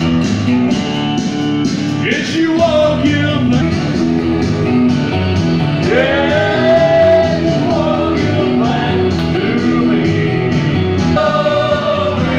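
Karaoke: a voice singing into a microphone over a backing track with a steady beat, holding one long note about halfway through.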